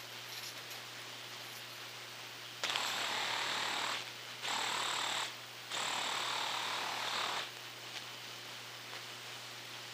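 Electric razor's ultrasonic noise mixed down into the audible range: a buzzy hiss in three bursts, each one to two seconds long, with short gaps between them.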